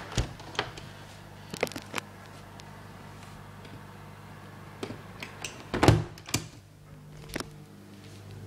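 A series of clicks and knocks from a window being closed, the loudest a heavy thump about six seconds in, over the steady low hum of a Blomberg dishwasher running.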